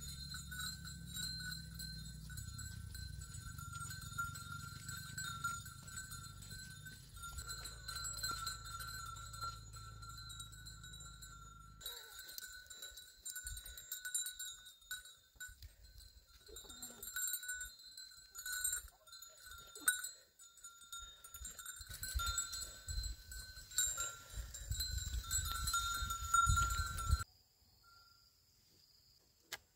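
Goats being herded along a path, with bell-like clinking and an occasional bleat over a steady high-pitched background drone.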